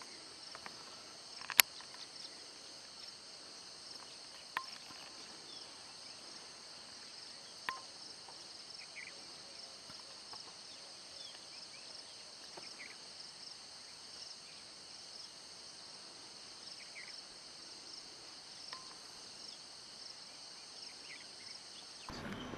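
Faint, steady evening insect chorus of crickets trilling continuously at a high pitch. A few sharp clicks stand out in the first eight seconds, along with scattered faint short chirps.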